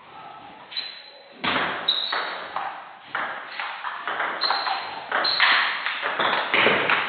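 Table tennis rally: the ball clicking off bats and table in quick alternation, about two to three strikes a second, each with a short echo from the hall. The rally starts about a second and a half in.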